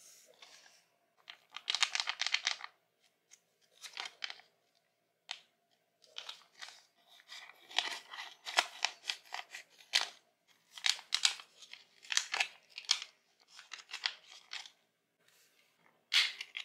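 A plastic eye-mask pouch crinkling in the hands and being cut open with scissors, in short crackly bursts with brief pauses between.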